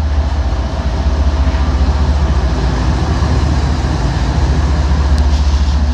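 CN intermodal freight train moving slowly past on the track, a steady heavy low rumble.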